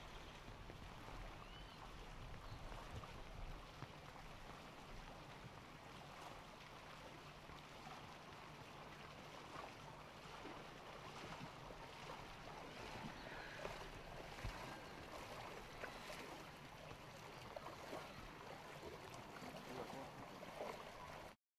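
Faint, steady outdoor ambience of a flooded street, with floodwater running and lapping and a few small knocks.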